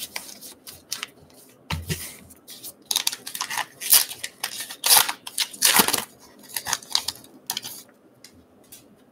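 Paper-and-foil wrapper of a baseball card pack being torn open by hand, a series of short crinkling rips and rustles. Two dull knocks near the start.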